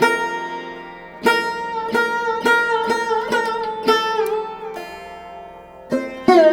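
Background music: a plucked string instrument playing single notes that slide and bend in pitch over a steady drone. There are about seven plucks in the first four seconds, a short lull, then two more near the end.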